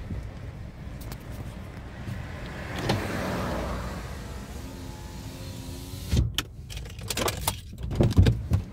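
Car driving, heard from inside the cabin: a steady low engine and road rumble, with a whoosh that swells and fades about three seconds in. A run of knocks and rattles comes near the end.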